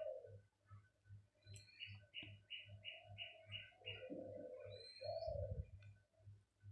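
Birds calling faintly: a small bird gives a quick run of high chirps, about four a second for some two seconds, among a few rising whistled notes and lower cooing calls.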